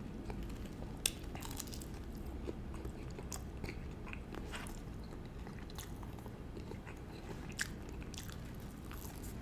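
Close-up chewing and biting of fried chicken, with scattered small crunchy clicks and two sharper ones, about a second in and near the end.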